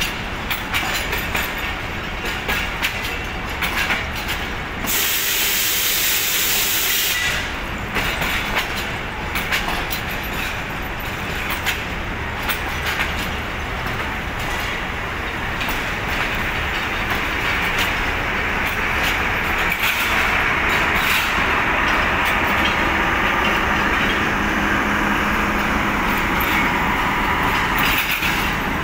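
Pakistan Railways passenger coaches rolling slowly past, their wheels clicking over rail joints. A loud hiss comes in about five seconds in and lasts roughly two seconds, and the wheel noise grows denser and louder in the second half.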